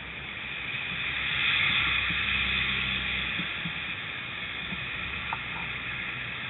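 Road traffic passing close by: a lorry's engine and tyre noise swell to a peak about two seconds in and then fade, with lighter traffic noise after.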